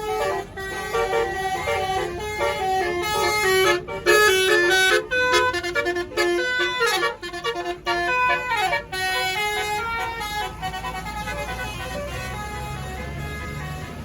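A tour bus's basuri telolet horn playing a fast multi-note tune, with several notes sliding downward; it stops about ten seconds in, leaving the bus engine's low rumble.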